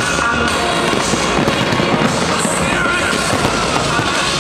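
A dense fireworks barrage: many bangs and crackles overlapping without a break, with music playing underneath.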